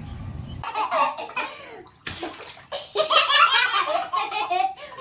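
A baby laughing in bursts in a bathtub, busiest in the second half, with a short break about two seconds in. A fraction of a second of low outdoor rumble cuts off at the start.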